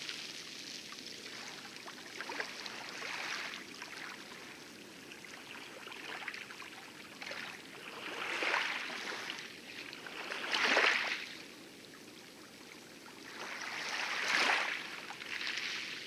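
Water splashing and lapping around a small rowboat being rowed through light lagoon waves, swelling and fading every few seconds, the strongest swells in the second half.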